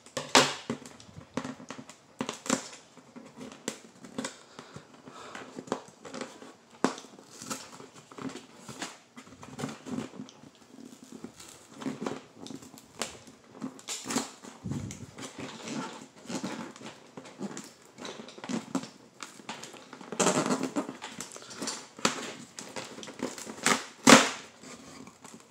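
Cardboard toy box being worked open by hand: irregular scraping, crackling and clicks from the tab and cardboard insert, with a sharp snap near the end.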